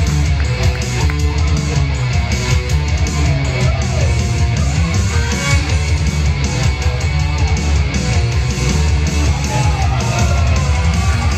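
Loud rock music with electric guitar over a heavy, steady bass, playing continuously.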